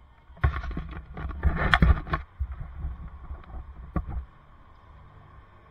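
Close handling noise on the camera microphone: a dense run of bumps, knocks and rubbing in the first two seconds, then a few scattered knocks and a sharp click about four seconds in.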